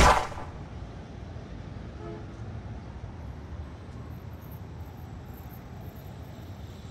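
A single pistol shot right at the start, dying away within about half a second, followed by a steady low outdoor rumble.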